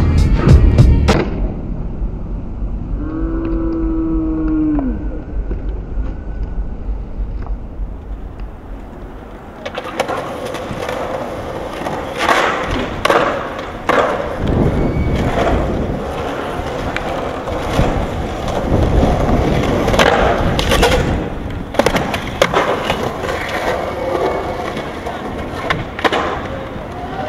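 Skateboard sounds: a grind on a ledge at the start, then urethane wheels rolling on concrete from about ten seconds in, with repeated sharp snaps of the tail and clacks of the board as tricks are popped and landed.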